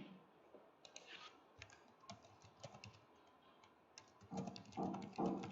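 Computer keyboard typing: faint scattered key clicks at first, turning louder and evenly paced from about four seconds in.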